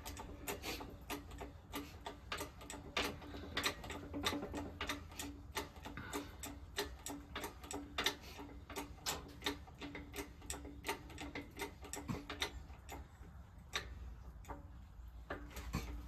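Rapid clicking, about three to four ticks a second, over a low steady hum, from a shop press being worked to push a synchronizer blocker and collar onto a John Deere 4230 transmission top shaft; the clicking thins out in the last few seconds.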